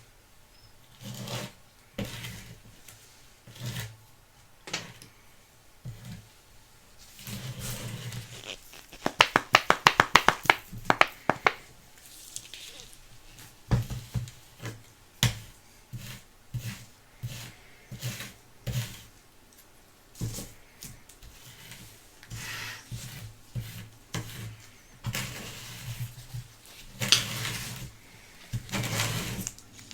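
Hands rubbing, scratching and tapping at small plastic and cardboard items, with scattered clicks and a quick run of about ten sharp clicks around ten seconds in.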